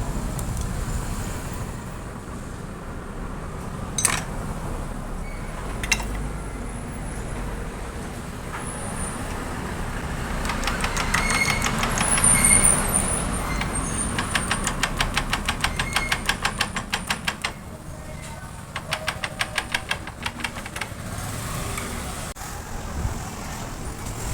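Hand tools on a motorcycle engine: a couple of sharp metal clicks, then two runs of rapid, even clicking like a ratchet wrench being worked on the engine's nuts, over a steady low rumble.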